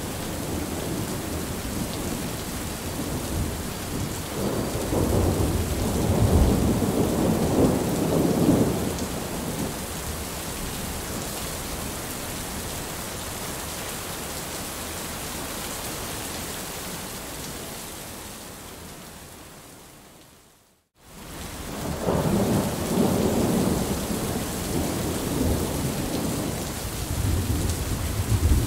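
Heavy rain pouring steadily, with thunder rumbling twice: a long roll from about 4 to 9 seconds in, and another from about 22 seconds to the end. About two-thirds of the way through, the rain fades out to silence and comes straight back in.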